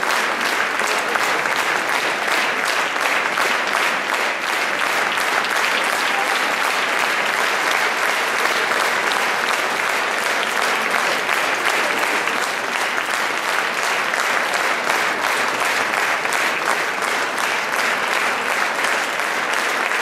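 A large theatre audience applauding steadily, the clapping falling into a regular beat of about two to three claps a second.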